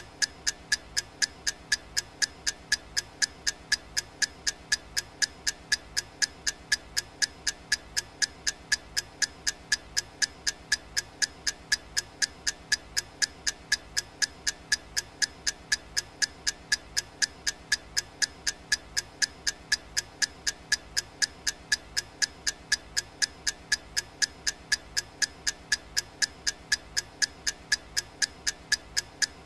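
Clock ticking sound effect of a countdown timer: sharp, evenly spaced ticks at a steady, unchanging rate.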